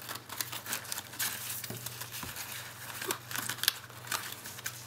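Irregular rustling and crinkling as organza ribbon is pulled around a paper treat box topped with a cellophane candy bag, with small scattered clicks of hands handling the paper.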